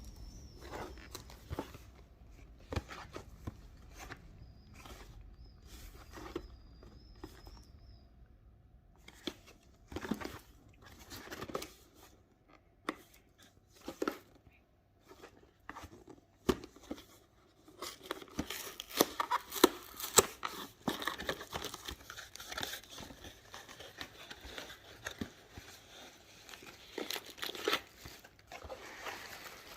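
Plastic wrapper of a wafer packet crinkling and tearing as it is handled and opened, with scattered taps and clicks; the rustling grows densest in the last third.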